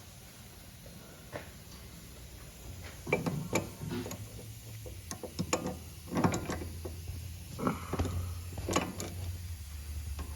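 A car's front steering and suspension creaking and clunking irregularly over a steady low hum. This is the squeaking noise the car makes on left and right turns, which they trace to worn, loose tie rod ends.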